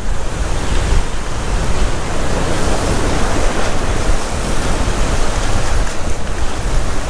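Ocean swell surging and breaking against a rock ledge, a steady rush of surf, with wind buffeting the microphone.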